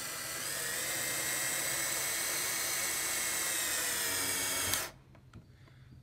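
Cordless drill driving a screw through a wooden roof panel into the wood beneath: a steady motor whine that rises slightly in pitch in the first second, then stops suddenly nearly five seconds in.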